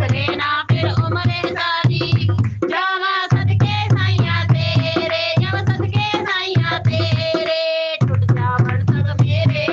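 Punjabi devotional song: a voice sings a melody over a regular drum beat, the drums dropping out briefly twice.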